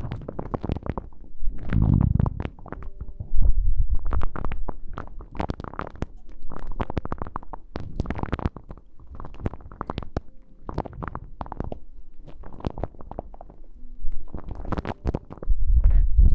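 Close-miked ASMR rustling and rubbing: irregular crackling strokes with occasional heavier low thuds against the microphone.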